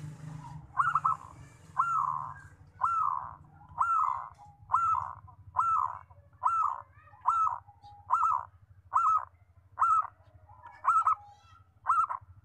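Zebra dove (perkutut) giving a series of about a dozen short cooing notes, roughly one a second, coming slightly faster toward the end.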